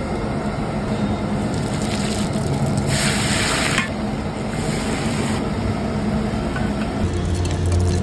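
Hot oil sizzling in a steel cooking pot as paste and other ingredients are dropped in, with a loud burst of sizzling about three seconds in.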